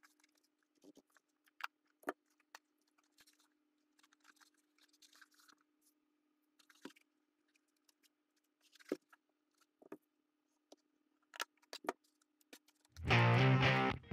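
Faint scattered clicks and rustles of a cardboard helmet being handled and cardboard strips pressed down by hand, over a faint steady hum. Loud upbeat rock music with guitar starts near the end.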